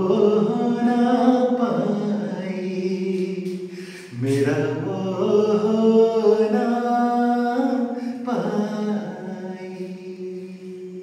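A man singing long, drawn-out held notes in three phrases, each starting strongly and fading away.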